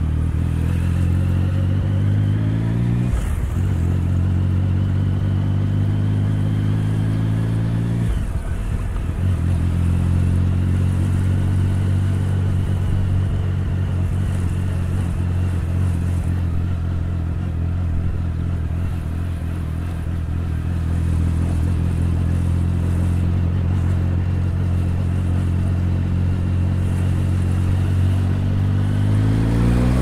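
Triumph Tiger 1050's three-cylinder engine under way. Its note climbs, breaks off briefly for gear changes about 3 and 8 seconds in, and then holds steady at a gentle cruise. Near the end it rises again as the throttle opens.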